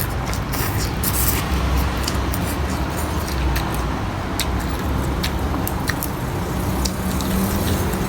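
Eating sounds: chewing with scattered sharp little clicks, over a steady low background rumble.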